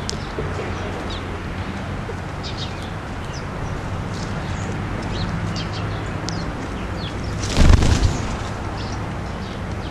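A sudden loud whirr of wings about three-quarters of the way in as California quail flush off the ground, lasting about half a second. Scattered short high bird chirps run throughout over a steady low hum.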